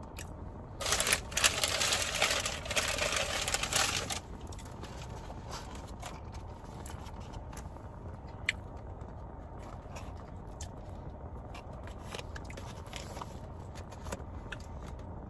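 Takeout food packaging crinkling and tearing for about three seconds, starting about a second in, then only faint scattered clicks of handling over a low steady rumble.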